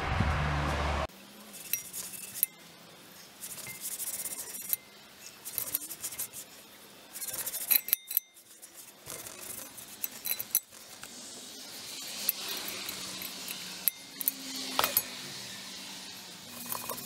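A rag rubbing oil over a cast-iron Dutch oven, with scattered sharp clinks and knocks of the iron as the pot is handled and turned upside down. For about the first second a rushing noise is heard, and it cuts off suddenly.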